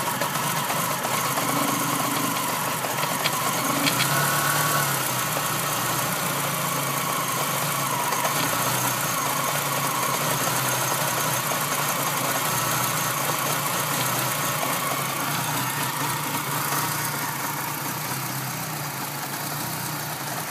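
Renault Clio RS 2.0 16-valve four-cylinder engine idling steadily, making the strange noise that appeared after a short hard run on a freshly rebuilt engine (new timing kit, water pump, accessory belt kit and lightened damper pulley); its cause is unknown to the owner.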